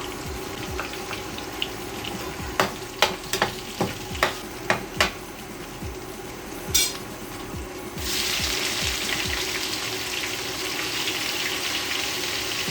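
A frying pan of hot oil: first a series of sharp clicks and taps, then about eight seconds in a loud sizzle starts suddenly as the garlic, green chilies and onions go into the oil, and keeps frying steadily.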